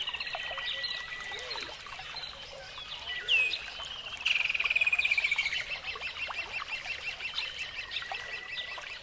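Birds calling and chirping, with a sharp loud call a little over three seconds in and a long, rapid trill that slowly falls in pitch from about four seconds on.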